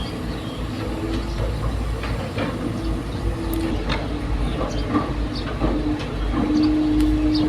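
Heavy machinery running at a steady low rumble with a droning hum, peppered with short metallic clanks and knocks; the hum grows stronger near the end.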